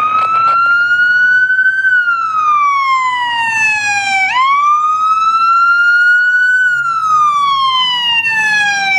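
Electronic emergency-vehicle siren on a fire department battalion chief's Ford pickup running code 3, on a wail setting. The pitch climbs quickly, then slides slowly down, in two full cycles of about four seconds each.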